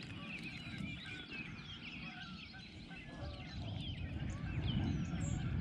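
Wild birds calling over open water: many short chirps and whistles scattered throughout, over a low steady rumble.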